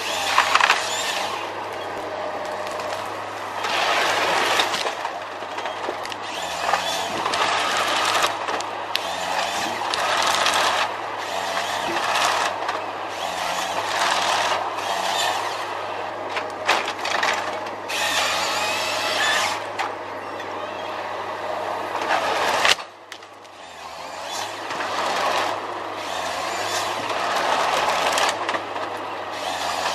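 Forestry harvester at work: its diesel engine runs steadily under load while the hydraulic harvester head feeds tree stems through its rollers and strips off the branches, with rasping, crackling bursts over the engine. About three-quarters of the way through the noise drops off sharply, then builds up again.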